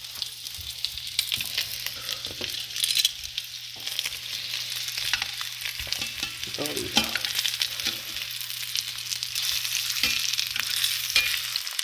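Split sausages frying in butter in a cast iron skillet: a continuous sizzle with many small crackling pops, with metal tongs scraping and clicking against the pan as the links are turned.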